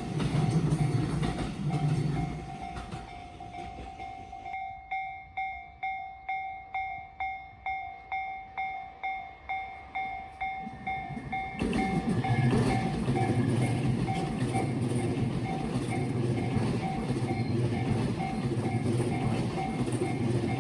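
Japanese railway level crossing alarm ringing steadily at about two strokes a second. A passing electric train's rumble and wheel clatter fades out about two seconds in, and a second train arrives about twelve seconds in, its wheels clattering rhythmically over the rail joints.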